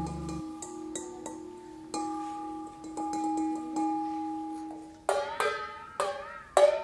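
Improvised instrumental music with plucked, ringing notes that die away slowly. A low bass note stops about half a second in. From about five seconds, sharper, brighter plucked notes come in, some with a wavering pitch.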